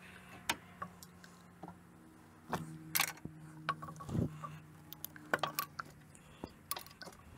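Scattered light clicks, taps and rattles of small plastic and metal parts being handled, such as coil packs, their connectors and hand tools, with a faint steady low hum for a while in the middle.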